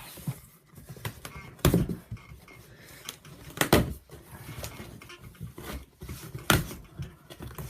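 Handling noise from a replica title belt and its packaging being moved about: a steady low rustle broken by a few sharp knocks, three of them louder than the rest.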